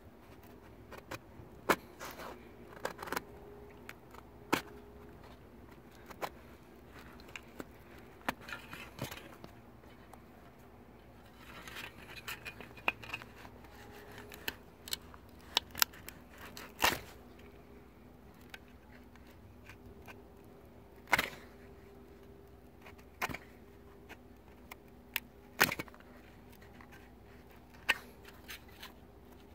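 A rusty metal edge scraped and knocked against the toe of a leather boot in short, irregular strokes with pauses between them, scuffing the leather to distress it.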